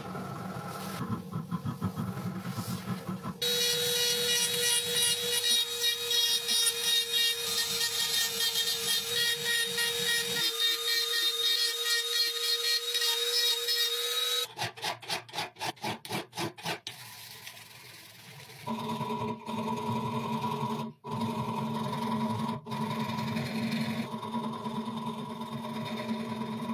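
Electric power tools running in several short cuts. First a low steady hum, then a loud, high-pitched grinding noise over a steady motor tone. Around the middle comes a quick run of pulses, and near the end a different motor sound with a steady whine.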